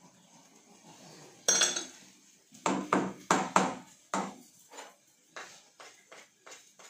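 Wooden spatula and spoon knocking and scraping against a frying pan as chopped onion and garlic are stirred into the oil. A clatter about a second and a half in, a run of sharp knocks, the loudest part, a couple of seconds later, then lighter taps about three a second.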